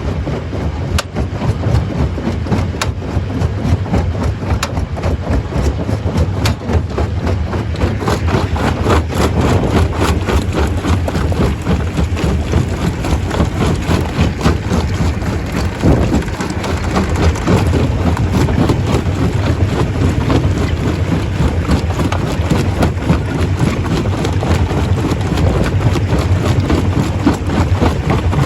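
Stone crusher running: a steady machine rumble under a dense, continuous clatter of rocks knocking and breaking, thickening after about eight seconds.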